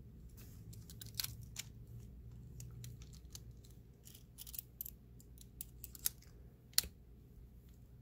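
Small clicks and scrapes of a screwdriver bit working in the bottom screw of a Master Pro Series 6830 brass padlock, the bit slipping in a screw head that is practically stripped, with one sharper click near the end. A low steady hum runs underneath.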